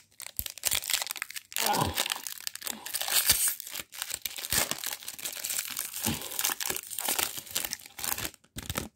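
Plastic wrapper of a trading card pack crinkling and tearing as it is ripped open by hand, a long run of crackles that is loudest about two to three seconds in.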